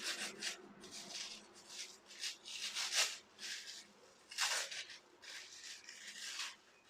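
Packaging being opened and handled by hand: irregular rustling and scraping in a string of short bursts, the loudest about three seconds in and again about a second and a half later.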